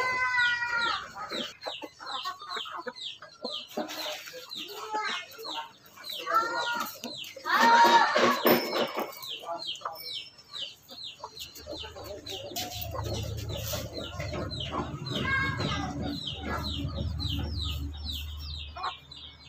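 Chickens clucking and calling over fast, high, repeated peeping of chicks, with the loudest call about eight seconds in. A low steady rumble joins from about twelve seconds in.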